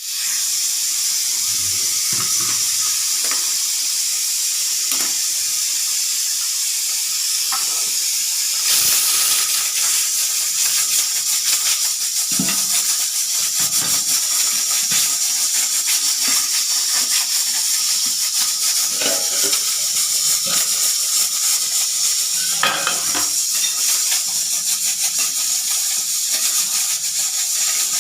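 Pressure cooker whistle venting steam: a steady, high hiss with a fast sputtering flutter, which gets louder about nine seconds in. The whistle blows when the cooker has reached full pressure.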